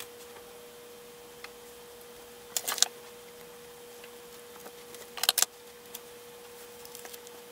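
Fabric and gathered lace trim being handled, with two short rustles about two and a half and five seconds in and a few faint ticks, over a faint steady hum.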